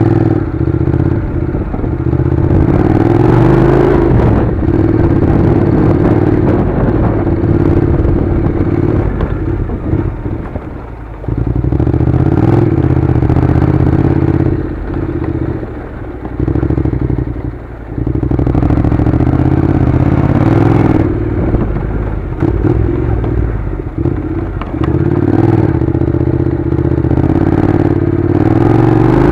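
Honda NC700's 670 cc parallel-twin engine running at low speed on a gravel track, with the bike clattering over loose stones. The engine note drops briefly three times along the way.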